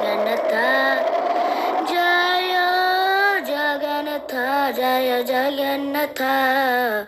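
A high voice singing a devotional song in long, drawn-out notes that bend and waver in pitch.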